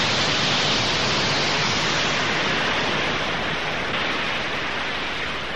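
Loud, steady hiss of vapour jetting into a stage-illusion cabinet, easing off slightly toward the end.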